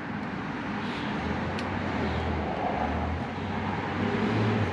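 Road traffic: a motor vehicle's low, steady engine hum that grows louder toward the end, with one faint click about a second and a half in.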